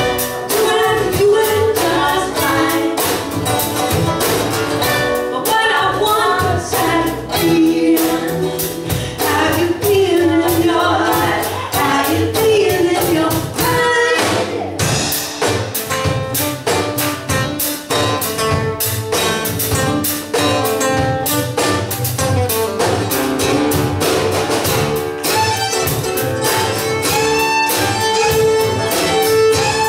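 Live acoustic string band playing: a woman sings lead over acoustic guitar, banjo, upright bass and drums. A fiddle joins near the end.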